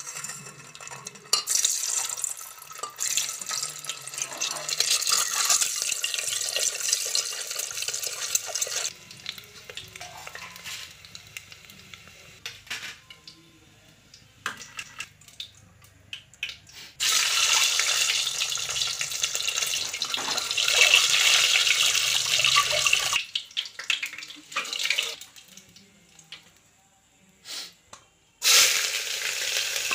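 Hard-boiled eggs frying in hot oil in an aluminium pressure cooker, sizzling and spattering loudly in several spells that start and stop abruptly. A fresh burst of sizzling comes near the end as spices go into the oil.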